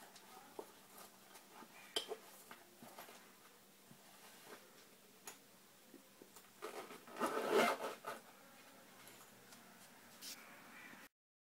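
Small rustles and clicks of cloth pouches being pushed into a fabric-covered uvex hard glasses case, then a louder rasp of the case's zipper being pulled shut about seven to eight seconds in.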